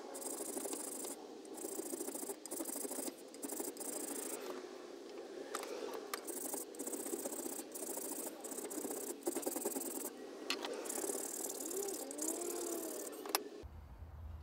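A cheese grater file (Surform-type rasp) rasping back and forth over a wooden piece clamped in a vice, rounding it into a curve. The rasping stops with a sharp knock near the end.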